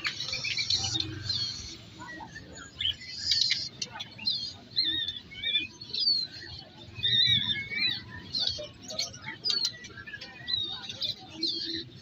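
Many caged songbirds chirping and whistling at once in a dense, overlapping chorus of short rising and falling notes, with people's voices murmuring underneath.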